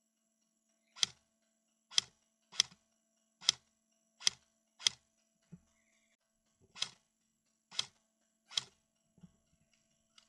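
Airsoft gun firing single shots: about nine sharp snaps at an uneven pace of roughly one a second, with a short pause in the middle.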